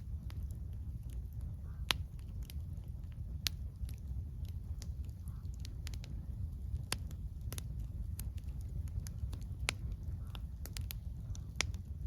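Wood campfire crackling, with sharp irregular pops and snaps of burning wood over a steady low rumble.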